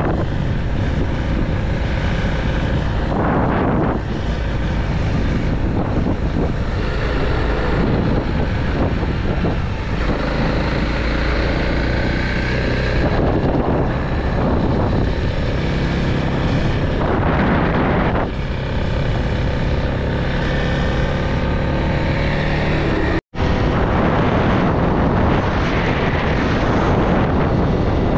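Motorcycle engine running under way, its pitch rising and falling with the throttle, under heavy wind noise on the microphone. The sound cuts out for an instant near the end.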